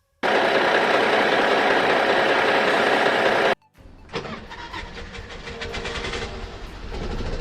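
Engine sound effects: a loud engine running, cut off abruptly about three and a half seconds in, then another engine starting up with a rapid even ticking that grows louder.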